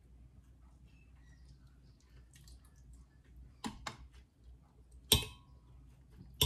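Knocks on a glass blender jar as pieces of mango go into it: a softer knock a little past halfway, then two sharp ones near the end, each followed by a brief ringing of the glass.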